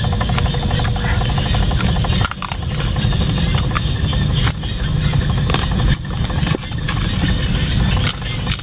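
A loud low rumble with irregular dips, and scattered sharp clicks over it.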